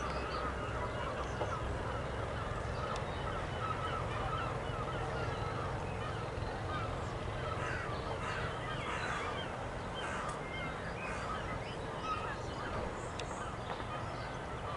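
Many birds calling in short, overlapping honking and chattering notes, over a low steady rumble from a diesel train.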